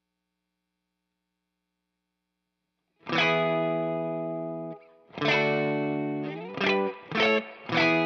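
Electric guitar chords played through an Ibanez CP10 compressor/sustainer pedal, with some distortion. After about three seconds of near silence, a chord rings out and fades slowly; a second chord follows a couple of seconds later, then three short chords come in quick succession near the end.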